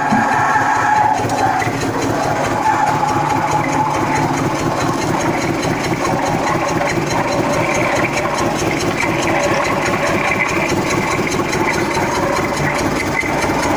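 Heavy construction machine's diesel engine, a road roller, running steadily with a fast, even chug.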